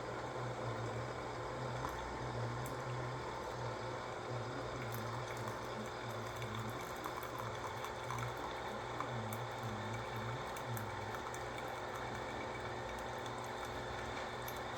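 Single-serve coffee maker brewing: a steady, wavering pump hum with hot water running through into the cup.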